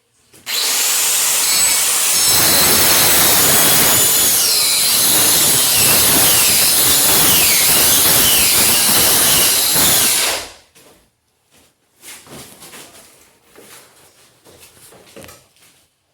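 A power tool runs for about ten seconds, its high motor whine dipping and recovering as it works against the material, then stops. A few faint knocks and scrapes follow.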